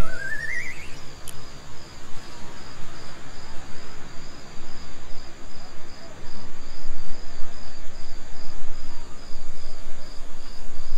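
Crickets chirping in an even, rhythmic pulse over a low ambient hum. A wavering rising tone fades out about a second in.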